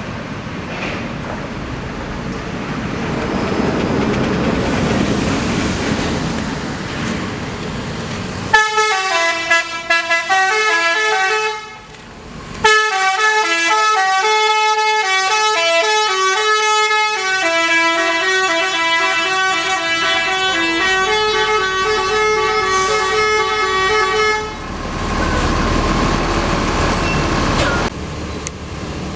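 Multi-tone telolet horn on a tour coach playing a quick tune of stepping notes. It cuts in sharply after engine rumble about eight seconds in, pauses briefly about twelve seconds in, and stops near twenty-four seconds, when the engine rumble returns.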